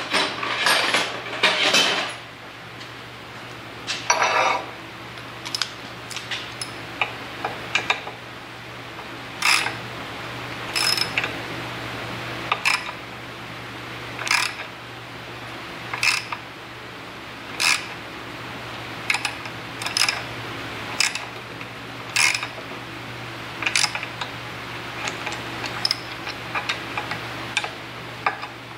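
A tap being worked by hand into a drilled bolt hole in a steel plate. There is a clatter of metal clicks in the first couple of seconds, then sharp metallic clicks about every second and a half while the tap is turned, over a steady low hum.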